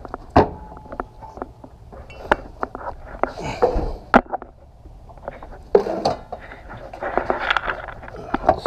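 Scattered metallic clinks and knocks of tools and parts being handled in an engine bay, irregular and sharp, with brief rustling handling noise between them.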